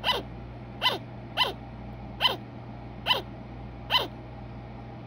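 A sugar glider barking: six short, yappy calls about one a second, each dropping sharply in pitch. This is the call a sugar glider gives when it wants attention or is alerting its colony.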